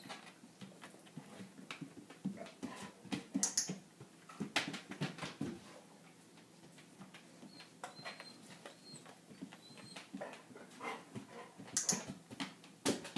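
Golden retriever moving about on a hard kitchen floor: scattered claw clicks, footfalls and light knocks, with a faint high whimper about eight seconds in.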